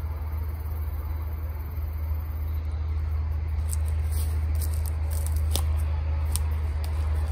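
A steady low rumble, with scattered light clicks and rustles from about three seconds in as a caught catfish is handled in the hand.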